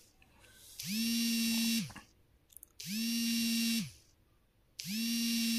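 A small motor buzzing in three one-second pulses about two seconds apart, each winding up in pitch as it starts, holding steady, then winding down as it stops.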